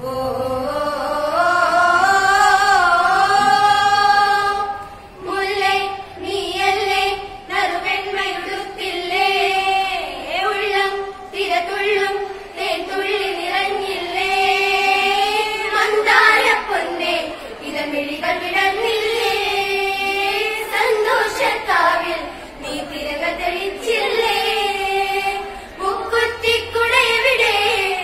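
Group of girls singing a song together without instruments, in phrases with short pauses between them.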